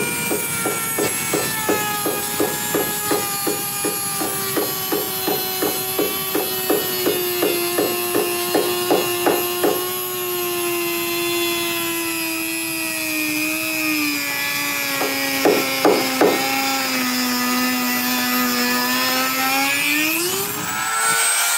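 Dremel rotary tool's cutoff wheel grinding through a metal screw. The motor whine sinks slowly in pitch under load, with a rapid regular ticking of about three a second through the first half. Shortly before the end the pitch rises sharply as the wheel comes free.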